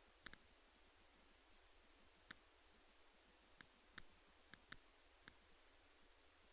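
A few sharp, short clicks at irregular intervals, about eight in all, some in quick pairs, over near silence.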